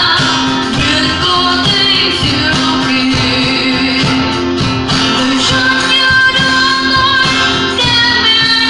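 A woman singing a melody into a microphone over acoustic guitar accompaniment, played live.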